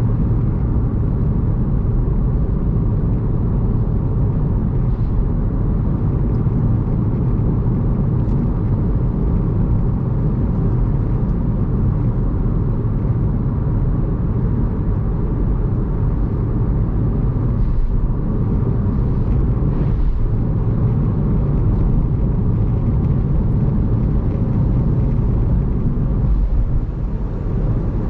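Steady low road and tyre rumble of a car cruising on an expressway in heavy rain, with wet-road noise.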